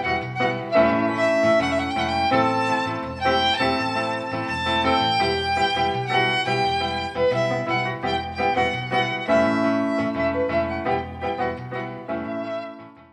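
Violin and Roland digital accordion playing a lively tune together, with bowed violin notes over the accordion's bass and chords. The last note dies away near the end, ending the piece.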